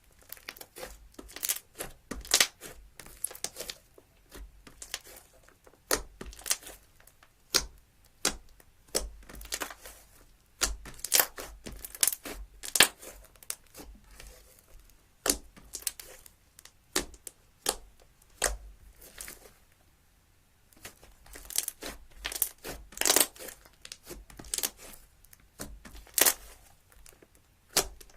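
Slime being squeezed and stretched by hand, giving irregular sharp pops and clicks with softer crackling between them, and a brief pause about two-thirds of the way through.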